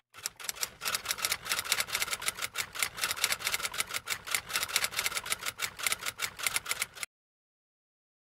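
Typewriter typing sound effect: a rapid, even run of key clicks, several a second, that cuts off suddenly about seven seconds in.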